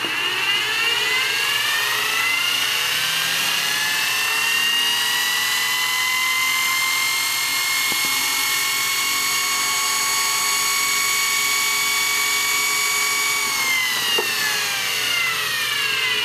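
Early-1940s General Electric 28-volt dynamotor spinning up with a rising whine, running at steady speed, then switched off about thirteen seconds in and winding down with a falling whine.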